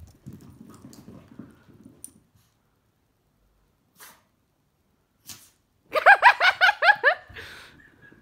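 Chihuahuas at play: a low growl for the first couple of seconds, then about six seconds in a fast burst of about ten high-pitched yaps, ending in a short huff.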